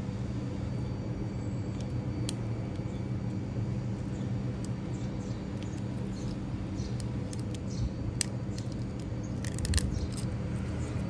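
Small metallic clicks of split-ring pliers and a steel split ring against a bottle cap rim: a single click about two seconds in and a quick cluster of clicks near the end. Under them runs a steady low hum.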